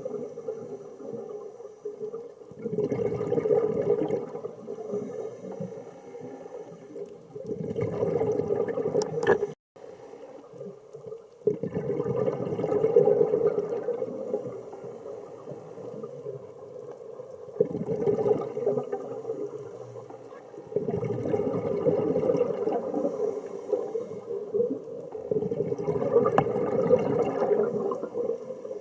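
Scuba diver breathing through a regulator underwater: loud bubbling exhalations about every four to five seconds, with quieter stretches between.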